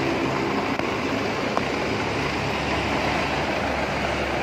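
Old Mitsubishi truck engine idling, a steady rumble.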